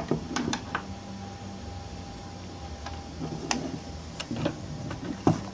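Several sharp clicks and taps, a quick cluster in the first second and a few single ones later, over a steady low hum with a faint thin tone.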